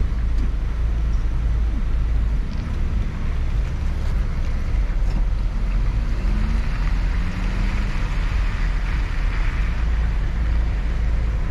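Wind rumbling on the microphone over the noise of a vehicle moving on a wet road.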